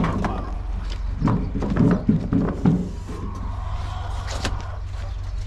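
Poultry-house door, a sheet-covered panel on a metal frame, being pulled shut: a knock, then a run of several heavy rattling thumps, and a sharp click a little later. A steady low hum lies underneath.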